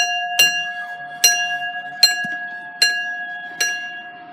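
Level crossing warning alarm sounding: a sharp, bell-like ringing strike repeating about every 0.8 seconds over a steady ringing tone.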